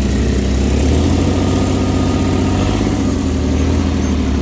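Off-road buggy's engine running steadily with a loud, low hum while being ridden.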